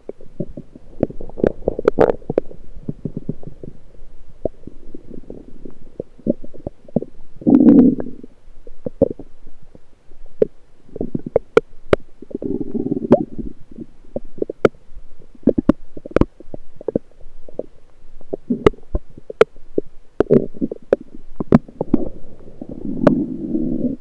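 Lower intestinal gurgling heard through an electronic stethoscope on the abdomen: low, bubbling swells of bowel sounds come and go, the strongest about eight seconds in and again near the end, with many sharp clicks and pops in between.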